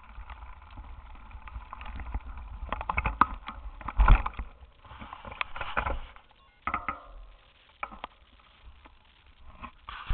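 Bicycle handlebar-mounted camera rattling and knocking as the bike rolls over rough ground, with a low rumble underneath. The knocks are loudest about four seconds in and die down for a while near the end.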